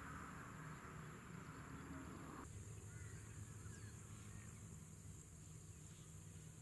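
Faint outdoor ambience with a few faint, distant bird chirps, the background changing abruptly about two and a half seconds in.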